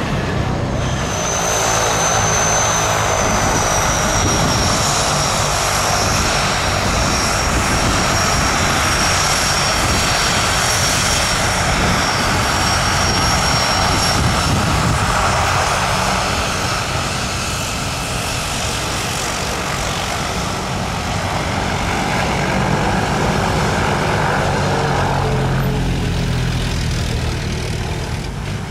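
Twin Otter's two PT6A turboprop engines running at taxi power: a steady propeller drone with a high turbine whine that falls slightly in pitch and fades out about halfway through.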